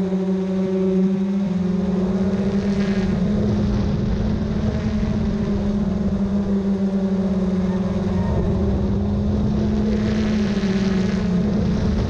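Multirotor camera drone's propellers humming steadily overhead, a constant pitched drone with a slight waver in pitch over a rushing noise.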